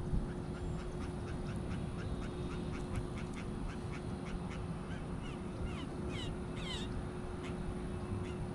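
Birds calling at the pond: a run of short repeated notes, about three a second, then a few quick downward-sliding whistles near the end.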